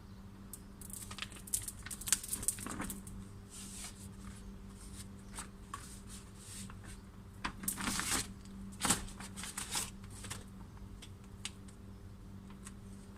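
Irregular plastic clicks, rattles and rustling from hands working on a car door lock actuator and its parts as it is taken apart, in two busier spells, one a second or two in and one about halfway.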